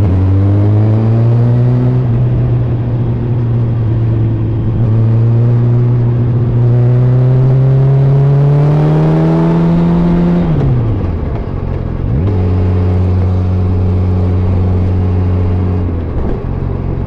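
Yamaha FZ1's inline-four engine on the move: its pitch climbs, drops at a gear change about two seconds in, then climbs slowly for several seconds under a growing rush of wind before falling away as the throttle closes around ten seconds, then holds steady at cruise and eases off near the end. The sound is muffled, picked up from a phone inside layers of jackets on the rider.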